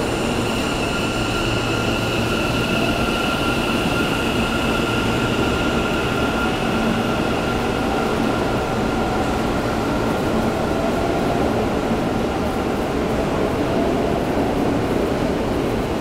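Kintetsu commuter train running, heard inside the passenger car: a steady rumble of wheels and running gear. A high, steady whine fades away about halfway through.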